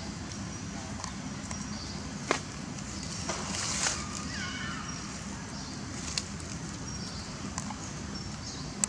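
Outdoor ambience: a steady low noise, a few sharp clicks, a short rustle, and a brief falling squeak about halfway through.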